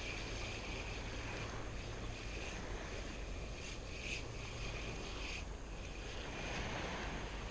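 Steady shoreline ambience of wind and surf, with a high insect buzz that breaks off and starts again every second or so.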